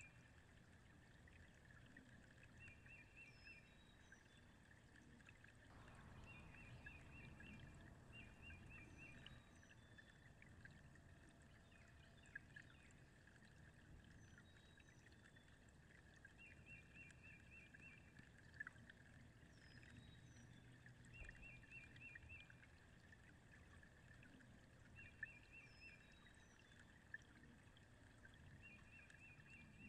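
Faint lakeside ambience: water gently lapping, with short trilled bird calls repeating every few seconds and occasional high chirps. A few faint ticks stand out briefly.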